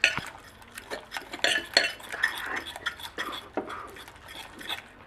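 A utensil stirring and tapping in a container, with irregular clinks and scrapes, as white glue is mixed with boric acid water and baking soda into slime.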